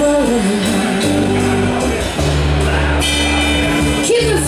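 Live blues band playing: a female lead vocal bends through a phrase at the start and comes back in near the end, over electric guitar, bass guitar and drum kit, which carry the music between.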